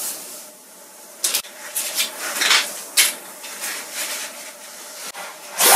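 Dried leaves and paper sheets being handled, rustling and crinkling in several short bursts, the loudest near the end.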